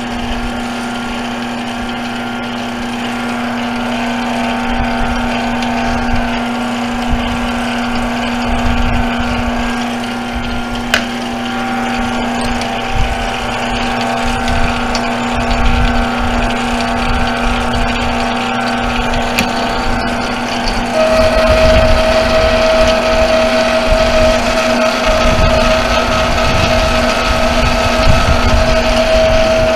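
Metal lathe running with a steady motor hum while a small 3/8-inch boring bar cuts inside the bore of the spinning workpiece. About two-thirds of the way through, a high steady whine joins in and the sound gets louder.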